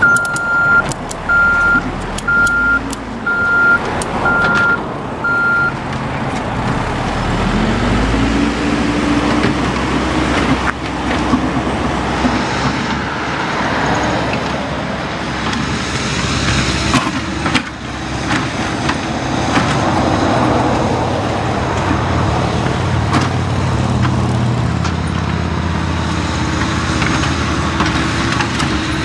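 Caterpillar backhoe loader's reversing alarm beeping six times, about once a second. Then its diesel engine revs up about eight seconds in and keeps working, with a few knocks.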